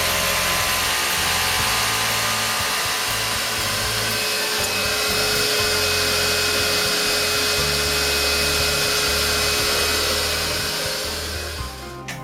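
Vacuum cleaner hooked up for dust extraction running steadily with a rushing noise and a faint steady whine, dying away near the end.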